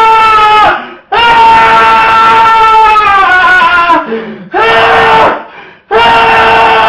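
A loud, shrill wailing voice in long held cries, each sagging in pitch at its end, with short breath-like gaps about a second in, just past four seconds and near six seconds.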